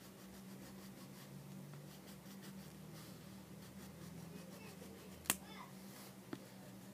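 Quiet room with a steady low hum and faint scratchy ticks; a single sharp click about five seconds in, and a softer click about a second later.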